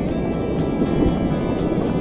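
Background music with a steady beat of about four light ticks a second, over the rushing noise of a whitewater rapid and paddle splashes.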